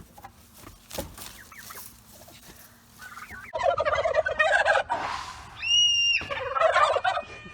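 Tom turkeys gobbling: two loud, rattling gobbles starting about halfway through, with a short, clear, high-pitched call between them.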